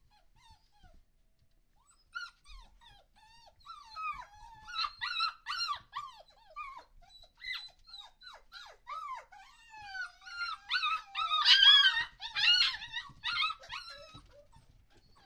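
Five-week-old puppies whining and yelping: many short, high, falling cries, several overlapping, starting about two seconds in and loudest near the end.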